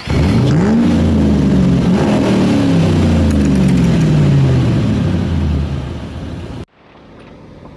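A car engine revs up sharply, then its pitch falls slowly over about five seconds before cutting off abruptly. Low, steady background noise follows near the end.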